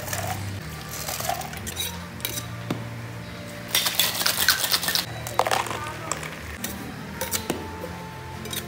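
Stainless-steel shaker tins clinking together as they are taken apart and handled. Then a dense rattling for about a second and a half as the shaker is shaken.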